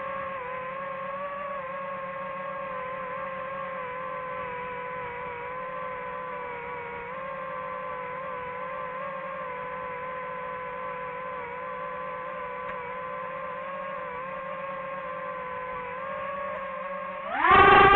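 DJI FPV drone's motors and cheap, floppy propellers humming steadily in a hover, the pitch wavering slightly; the owner says these props sound awful. About half a second before the end the sound jumps sharply louder as the motors spool up.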